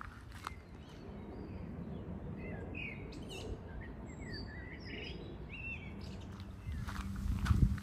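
Small birds chirping in short bursts for a few seconds over a steady low background rumble, with footsteps at the start and again near the end. Near the end a louder low rumble with a steady hum rises.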